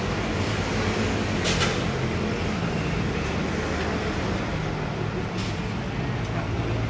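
Steady rumble and hum of street background noise at a food stall, with two short clicks, one about a second and a half in and one about five seconds in.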